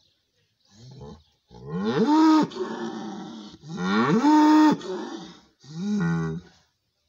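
A bull bellowing four times: a short low call, then two long loud bellows whose pitch climbs, holds and falls away, then a shorter call near the end.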